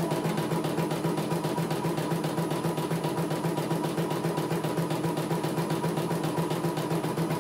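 CNY E900 portable computerized embroidery machine stitching out a design: a fast, even needle rhythm over a steady motor hum.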